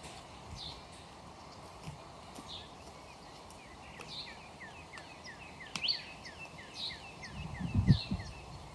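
Birds calling: a short call repeated about once a second, and in the second half a quick run of short falling chirps, about four a second. A few low thumps come near the end.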